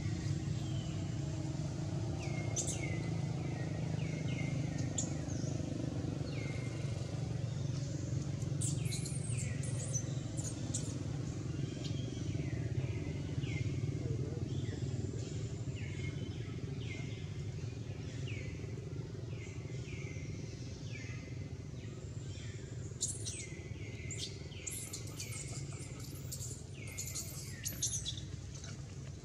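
Birds chirping: short high calls that sweep down in pitch, coming in quick runs, over a steady low rumble.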